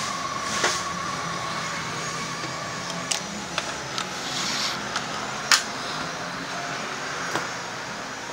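Exhaust muffler being bolted onto a scooter with a Makita cordless ratchet: a steady motor whine for about three seconds, then a series of sharp metallic clicks and clanks, the loudest about five and a half seconds in.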